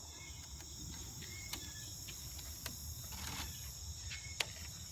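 Insects, crickets by their sound, trilling steadily in a high continuous chorus, with a few short chirps and several sharp clicks scattered through it.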